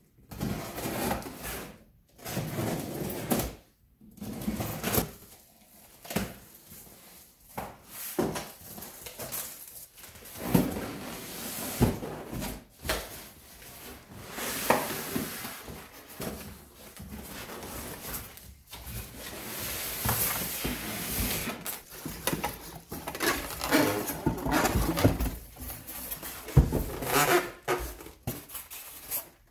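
Cardboard shipping box being opened by hand: flaps scraped and pulled open, then foam packing and plastic bags rustling and knocking as the contents are handled, in irregular bursts.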